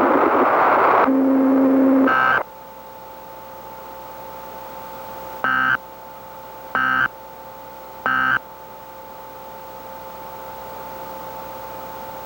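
About a second of loud static, a short low tone and a brief data burst, then three short EAS SAME end-of-message data bursts about a second apart over a faint steady tone, marking the end of the alert.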